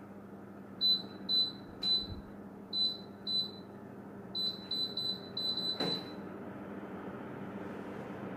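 A Sharp AH-AP9HHY split air conditioner's indoor unit gives about a dozen short, high beeps in two runs, the acknowledgement beeps it gives as it takes remote-control commands. A sharp click comes near the end of the beeps, over the steady hiss and hum of its running fan.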